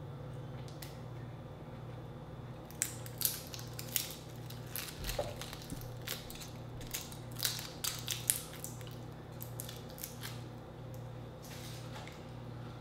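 Grilled shrimp shell being cracked and peeled apart by hand: a run of sharp crackles and snaps over a steady low hum.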